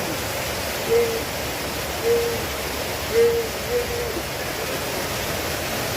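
Water cascading down a landscaped waterfall feature in a steady, even rush. Four short, level-pitched notes sound over it about a second apart.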